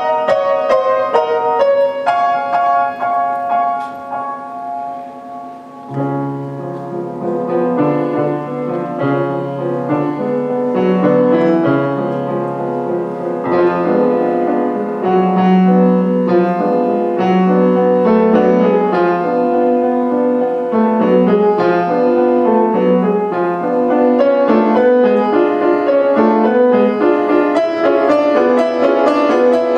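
Solo grand piano playing a classical piece: quick high notes soften for a moment, then about six seconds in low bass notes come in and the playing grows fuller and louder.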